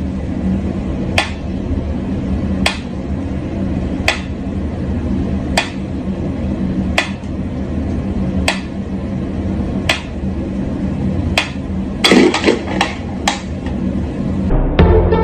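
Mechanical pendulum metronome ticking slowly and evenly, about one tick every second and a half, over a steady low hum. Near the end a quick flurry of knocks and clicks breaks the beat.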